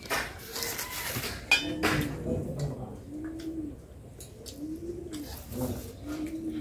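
A pigeon cooing, several low coos that rise and fall, each about half a second long, in the second half. Sharp clinks of steel dishes, the loudest about a second and a half in.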